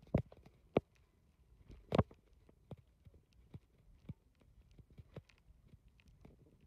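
Footsteps on a hard floor: soft, uneven taps about one or two a second, the sharpest near the start and about two seconds in.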